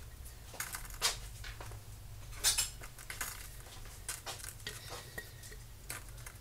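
Scattered clinks and taps of a kitchen utensil against a glass jar and a metal saucepan, half a dozen separate knocks with the loudest about two and a half seconds in. A low steady hum runs underneath.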